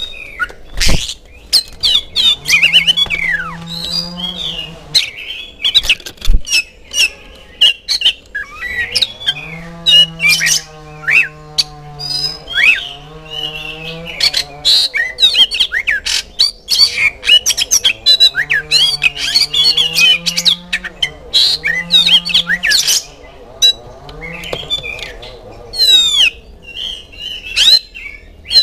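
Oriental magpie-robin singing: a rapid, varied run of sharp whistles, chips and chattering notes with only short pauses. A lower, drawn-out sound recurs several times underneath the song.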